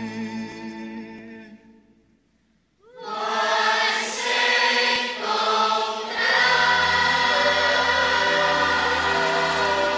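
Background music: one piece fades out, and after a short gap choral singing begins about three seconds in and carries on.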